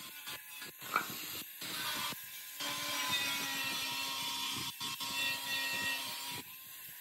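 Handheld angle grinder with an abrasive disc on a yellow backing pad, grinding a steel cover: motor whine over grinding noise. In the first two and a half seconds it is broken up by short gaps, then it runs steadily.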